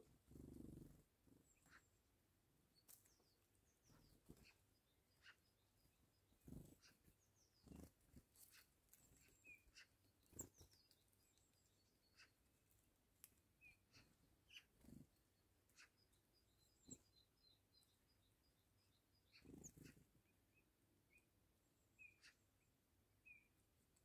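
Near silence with scattered faint taps of a Eurasian jay's beak pecking seed on a wooden feeding table, and a few faint distant small-bird chirps and short high trills.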